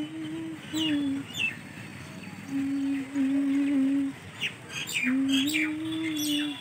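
Birds chirping in short, sharply falling calls, several times, over a slow tune of long held low notes that changes pitch in small steps; the held notes are the loudest sound.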